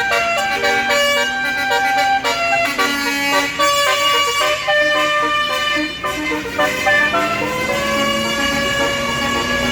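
Bus basuri telolet horn playing a tune: loud, steady horn notes that step from pitch to pitch every fraction of a second, several sounding together.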